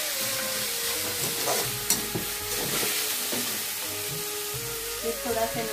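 Maggi noodles with peanuts, onion and chilli frying in a black kadai, sizzling steadily while a spatula stirs and scrapes through them. There is one sharp clink of the spatula against the pan about two seconds in.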